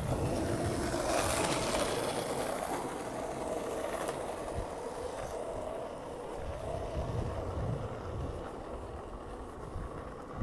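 Steady rolling rumble of small wheels on a rough asphalt path, with wind buffeting the microphone, gusting briefly about a second in.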